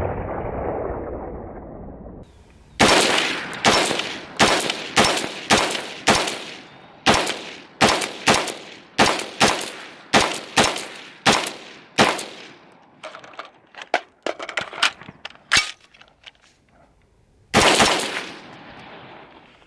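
LWRC IC-DI 5.56 AR-15 with a Dynamis Alliance Muzzle Thumper on the muzzle, fired semi-automatic in a fast string of about twenty shots, roughly two a second, each a sharp crack with a short ringing tail. A few fainter sharp clicks follow, then one more shot near the end.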